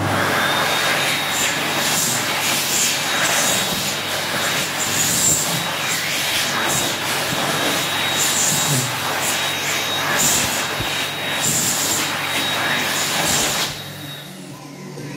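AIKE AK2800 hand dryer (ATC Cheetah type) blowing at full power, a loud rush of air with a steady high whine, set off by hands under the nozzle. It cuts off suddenly near the end when the hands are taken away.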